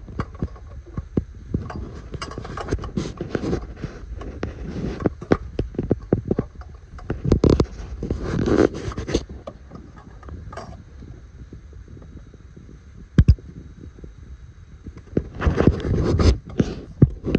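Irregular scraping, rubbing and knocking as hands and a handheld camera move about a pickup truck's engine bay by the fan and pulleys, with a single sharp knock about 13 seconds in and a busier cluster near the end.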